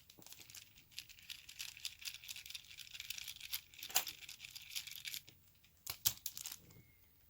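Tools and plastic being handled on a desk: about five seconds of crinkling and light clicking, then a few sharper clicks near the end.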